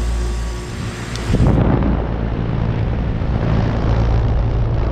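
Goodman GSZ14 2-ton heat pump outdoor unit running in heat mode: a steady hum from the compressor with the condenser fan's rushing air. The sound grows louder and fuller about a second and a half in, then holds steady.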